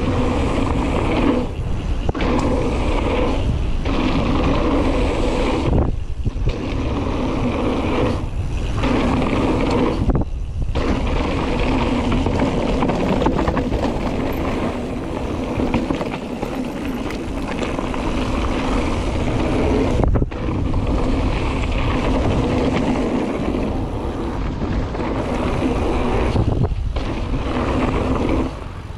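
Mountain bike going down a rough downhill trail: a steady rumble of tyres on dirt and rattling bike parts, mixed with wind on the microphone. It is broken now and then by brief dips.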